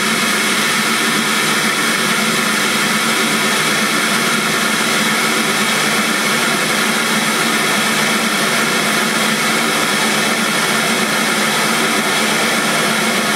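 FSD audio Standart 165 V 6.5-inch midrange car speaker playing a loud, steady test noise, an even hiss with little deep bass, for a loudness (SPL) measurement.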